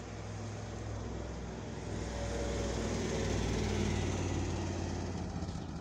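A road vehicle driving past on the street, engine and tyre noise building to a peak about four seconds in and then fading.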